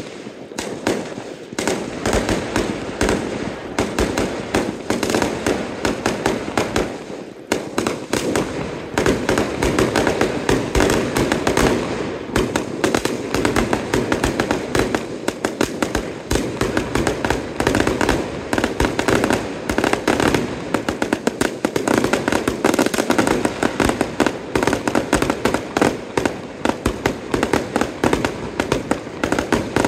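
Fireworks display going off in a dense, unbroken barrage of bangs and crackling as aerial shells burst, with a brief lull about seven seconds in.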